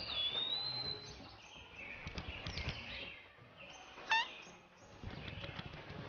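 Small cartoon birds chirping and twittering, with a thin high whistle held for about the first second and a sharp chirp about four seconds in.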